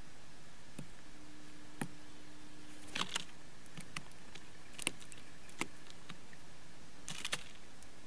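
Blue jays pecking at seed on a wooden bird table: irregular sharp taps of their bills on the boards, a few in quick pairs.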